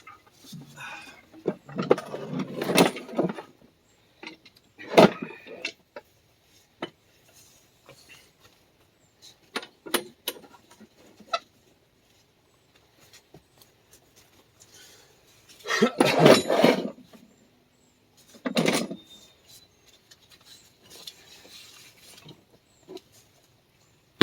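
Metal clanking and rattling in several separate bursts, the loudest about two seconds and sixteen seconds in, with single knocks between them: a floor jack and heavy steel axle parts being handled and positioned.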